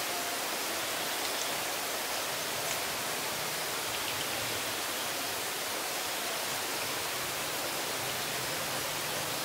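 Steady, even hiss of outdoor background noise.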